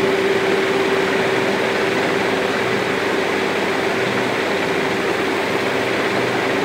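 Steady background hiss with a constant mid-pitched hum tone and a fainter low hum underneath, unchanging throughout: room noise such as a running fan or air conditioner.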